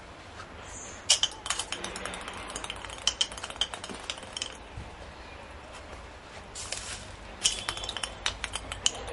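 A ping-pong ball bouncing and skittering on stone paving as a kitten bats it, a rapid run of light clicks, in two bursts about a second in and again near the end.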